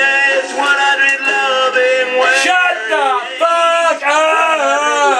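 A man's voice singing a song with musical accompaniment.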